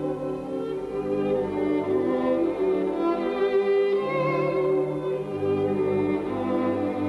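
Background music played by strings, a violin carrying the melody over held lower notes.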